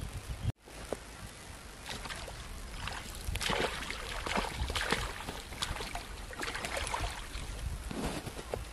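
Hooked catfish thrashing at the surface of a pond as it is pulled in on a pole and line, a run of irregular splashes and sloshes that comes in waves.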